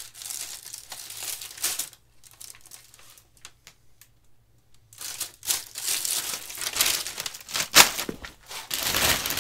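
Plastic bag and packing paper crinkling and rustling as wicket-keeping gloves are handled and pulled from a cardboard shipping box. The rustling stops for about three seconds near the middle, then comes back louder and busier.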